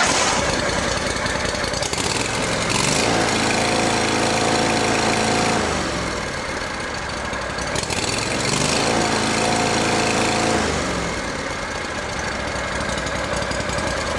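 Riding lawn mower's V-twin engine running just after being cranked up. Twice, about three and nine seconds in, it speeds up and holds for a couple of seconds before dropping back.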